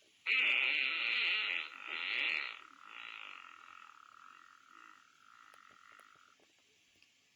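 Fart sound effects: a loud, raspy, sputtering fart with two swells over about two seconds, tapering into a thin, high squeak that fades out a few seconds later.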